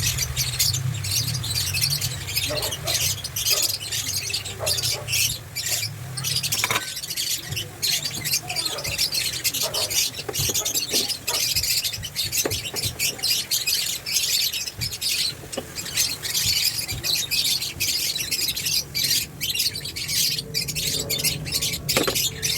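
Bitter melon sautéing in hot oil in a pan: a steady, dense crackling sizzle with occasional small clicks.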